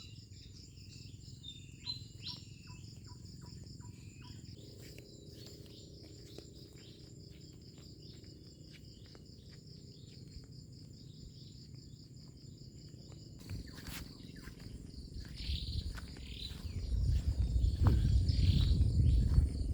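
Insects trilling steadily in a fast, even, high-pitched pulse, with a run of short falling chirps joining about two-thirds of the way through. Near the end a loud low rumble comes in over them.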